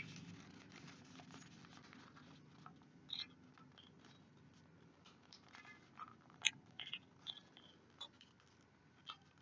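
Faint crinkles and ticks of a square sheet of origami paper being folded and creased by hand, as scattered short sounds through the middle and later part.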